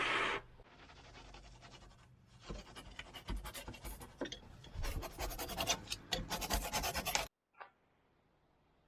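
Rubbing and scratching of hand work on materials: faint at first, then a quick run of scrapes and taps from about two and a half seconds in that cuts off abruptly near the end.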